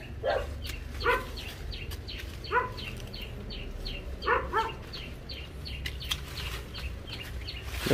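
A dog barking: about five short, sharp barks scattered through the first few seconds. Under them a bird chirps over and over, quick high falling notes about three times a second.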